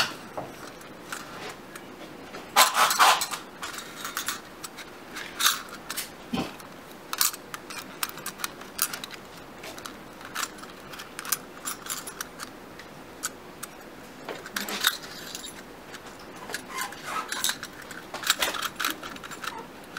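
Small gold-coloured metal parts of a Buddhist altar lantern clinking and scraping as they are handled and fitted together: a run of light clicks and rattles, loudest about three seconds in.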